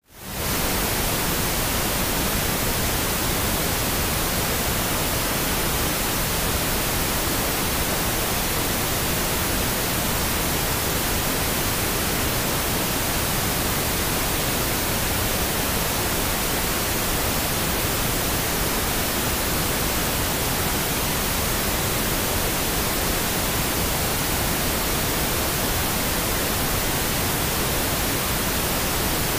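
Steady pink noise: an even, unchanging hiss that fades in quickly at the very start.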